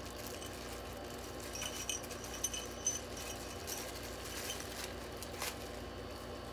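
Faint clinking of small metal screws and crinkling of a clear plastic hardware bag being handled, with a sharper click about five and a half seconds in.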